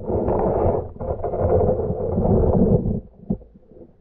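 Muffled underwater rumble and water movement heard through an underwater camera's waterproof housing, uneven and loud, falling away sharply about three seconds in.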